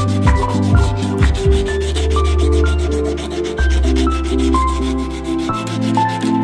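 Sanding of a steel axe head, a rubbing scrape, under background music with a slow bass line and short melodic notes.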